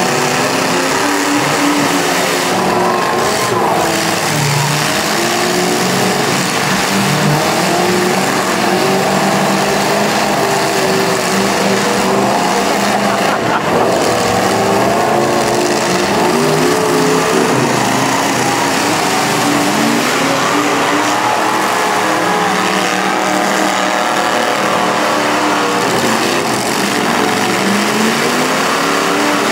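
Several demolition-derby trucks' engines running and revving at once, their pitches rising and falling over one another.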